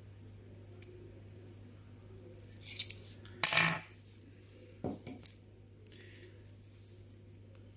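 Metal fishing-trace hardware clinking and rattling as it is handled: a cluster of clinks about two and a half seconds in, the loudest about three and a half seconds in, and another clink about five seconds in, with a few lighter ticks after.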